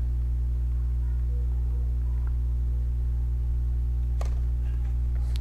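Steady low hum, with two sharp tennis-ball strikes near the end: a serve hit about four seconds in and a second strike just over a second later.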